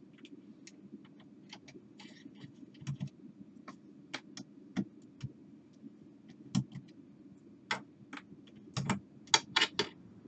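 Irregular small metallic clicks and ticks of a screwdriver undoing the screws that hold the optical pickup to its lifter in a Pioneer PD-Z81M CD player, and of the loose screws being set down, with a quicker run of sharper clicks near the end.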